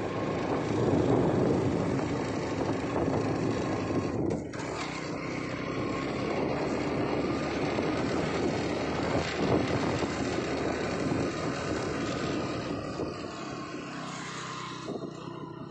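Motorbike engine running steadily under load as it climbs a steep slope, mixed with rushing wind and road noise, growing quieter near the end.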